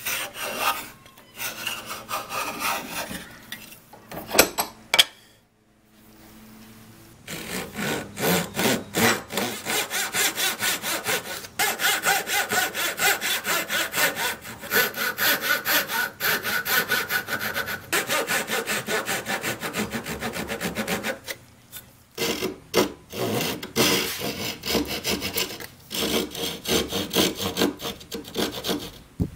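Japanese pull saw cutting wood by hand in long runs of quick, even rasping strokes, with brief pauses. Shorter, irregular scraping strokes of a hand tool on the wood come first, before a pause about five seconds in.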